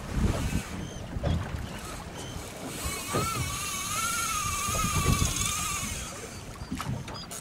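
Fly reel spinning with a whirring tone that wavers up and down in pitch for about three seconds in the middle, as a hooked false albacore fights on the bent fly rod. Wind buffets the microphone in low gusts throughout.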